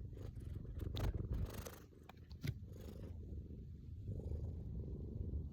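Domestic cat purring steadily in a low, pulsing rumble, with a few brief clicks about one to three seconds in.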